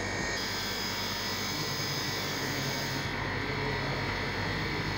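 2-ton water chiller unit running, a steady mechanical hum from its compressor. The compressor is drawing only about 8 amps against the 12–13 it should take, a sign that the system is low on refrigerant from a gas leak.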